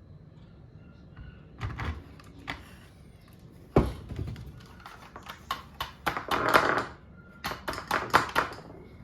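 Hard objects being handled and set down: a run of clicks and knocks, with a sharp thunk about four seconds in and a short scraping rustle a little later.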